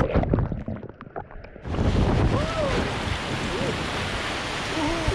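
Sea surf and wind noise on the microphone: muffled for the first second and a half or so, then an open, steady rush of waves, with faint distant voices.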